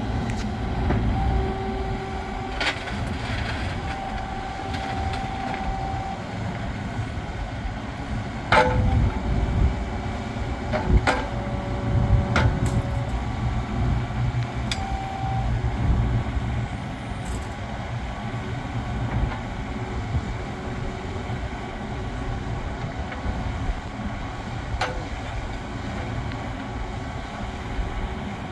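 Kubota U30-5 mini excavator running, its diesel engine a steady low drone while the boom, arm and bucket are worked. Short hydraulic whines come and go, and several sharp clunks are heard, about five in all.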